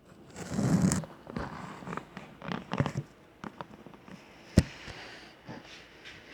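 A person coughing in a series of short bursts, the strongest about half a second in, with a sharp click about four and a half seconds in.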